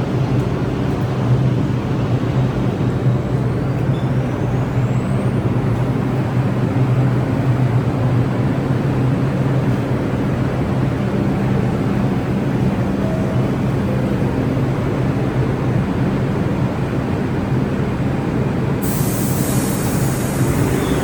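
R62A subway train running steadily, a low hum and rumble of motors and wheels on rail, with a faint rising whine early on. Near the end a high hiss starts suddenly.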